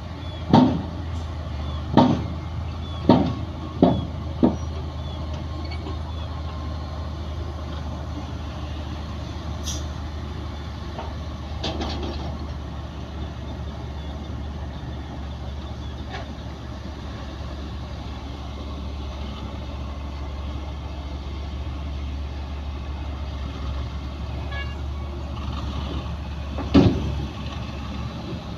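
Heavy diesel earthmoving machinery running steadily, a deep continuous engine drone. Five loud metallic bangs come in quick succession in the first few seconds, and one more comes near the end.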